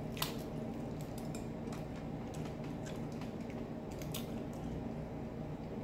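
Boiled shellfish being pulled apart by hand: scattered small clicks and crackles of shell breaking as the meat is picked out.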